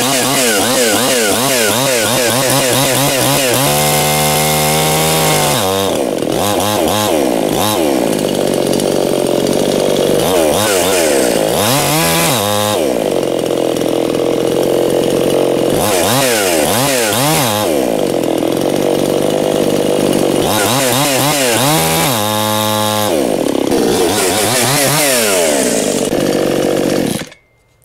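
Anbull 52cc two-stroke chainsaw revved up and down repeatedly with the chain brake engaged. The engine overpowers the brake and the chain keeps spinning: the brake is slipping, which the owner puts down to oil left on the brake from manufacture.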